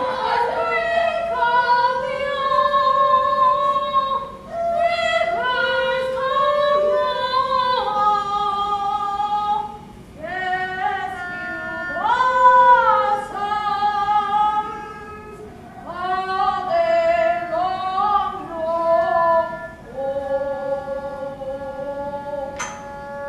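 A solo Peking opera melody: one high line of held notes that slide and waver, in phrases of a few seconds with short breaks between them. A single sharp click sounds near the end.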